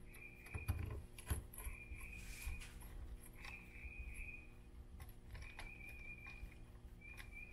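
Faint clicks and taps of small parts and tools being handled during work on an RC car, with a brief high-pitched whine that comes and goes about six times.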